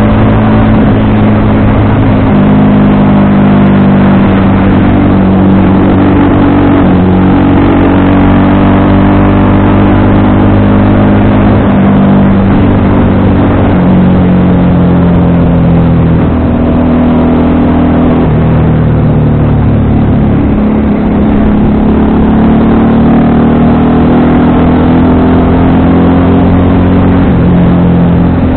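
FKM Victorino 250i motorcycle's 250 cc V-twin running under way. The engine note holds, then steps up and down in pitch repeatedly as the throttle opens and closes.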